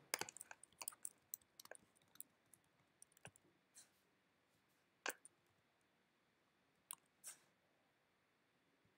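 Faint keystrokes on a computer keyboard: a quick, irregular run of typing in the first couple of seconds, then a few separate clicks spaced out over the rest.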